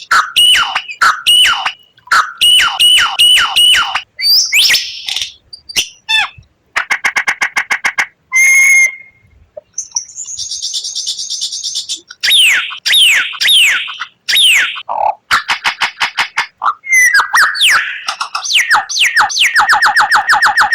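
White-rumped shama (murai batu) singing a varied song: phrases of quick down-slurred whistles repeated in groups, a high buzzy passage, and fast rattling trills toward the end.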